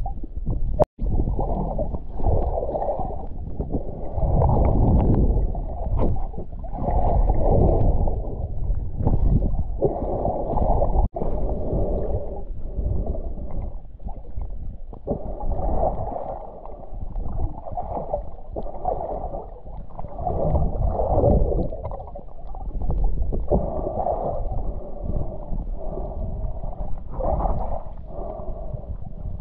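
Muffled water sloshing and gurgling, swelling and fading every two or three seconds, with the sound cutting out for an instant about a second in and again near the middle.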